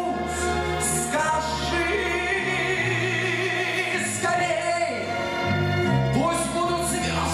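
A man singing a slow Russian ballad into a microphone, over an instrumental accompaniment with sustained bass notes.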